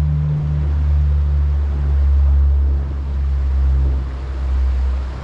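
Propeller aircraft flying overhead, a steady low drone that swells and eases slightly.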